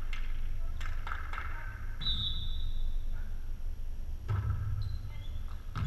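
A volleyball being struck several times in a sharp, quick series of hits, the firmest about four seconds in and near the end. Brief high squeaks of sneakers on the gym floor come in between.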